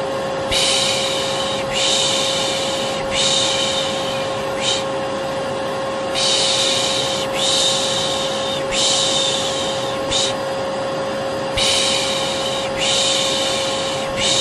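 Vacuum cleaner motor running steadily with a constant hum, under a person's rhythmic 'shh' shushing: three long shushes followed by a short one, repeating about every five and a half seconds, as a looped baby-soothing white noise.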